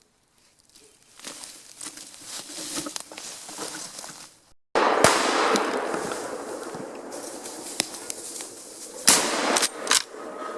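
Brush and twigs crackling and snapping in dense undergrowth, growing louder. After a brief break it comes back louder and slowly fades, with a few sharp cracks near the end.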